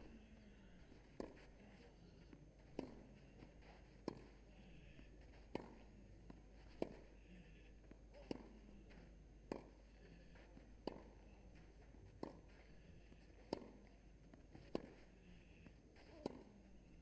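Faint, short knocks at a very even pace, roughly three every four seconds, over a low steady hiss.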